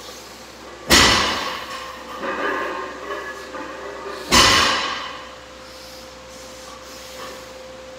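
Two loud heavy impacts, about three and a half seconds apart, each ringing and echoing away over about a second. A faint steady hum runs under the second half.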